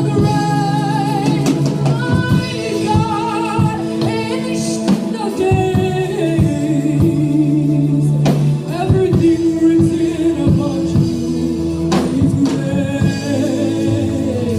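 Live gospel worship music: singers with vibrato over held keyboard chords, with occasional drum hits.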